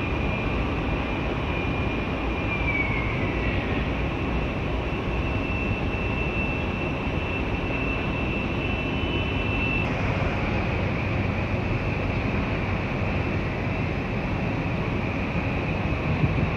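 Container terminal machinery: a steady low rumble with a high-pitched whine that drops in pitch about three seconds in, then a high tone that cuts off about ten seconds in.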